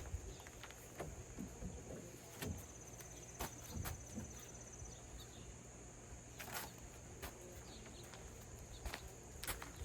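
Scattered light clicks and knocks from ratchet straps and kayak-rack hardware being handled, over a steady high-pitched insect drone.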